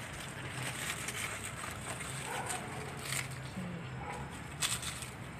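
Rustling and handling of melon leaves and vine stem, with a few short, crisp clicks or snips, over a steady low hum.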